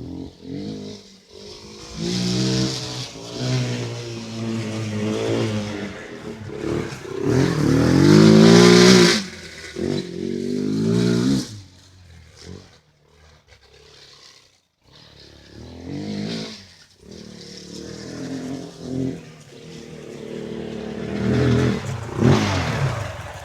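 ATV engine revving up and down in repeated surges, loudest and highest about eight to nine seconds in. It drops back near idle for a few seconds around the middle before revving again.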